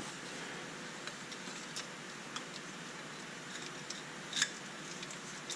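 Faint, scattered clicks and light handling noises from parts being worked by hand, the sharpest click about four and a half seconds in, over a steady low hiss.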